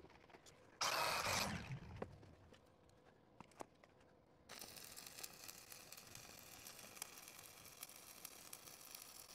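Stick-welding arc with a 5/32-inch electrode, struck again about halfway through and then crackling and hissing steadily. Before that the arc is off: a brief loud rustle about a second in, the loudest sound, and a couple of faint clicks.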